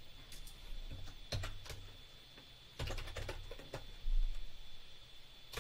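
Computer keyboard keys clicking in a few short runs of keystrokes, with a dull low thump about four seconds in.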